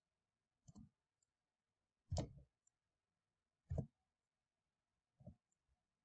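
Four faint single clicks of a computer key or mouse button, about a second and a half apart, each one stepping the screen on to the next word.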